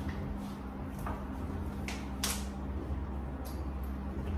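A few light clicks and knocks of a plastic food container and a plastic bottle being handled at a kitchen stove, the sharpest a little past two seconds in, over a steady low hum.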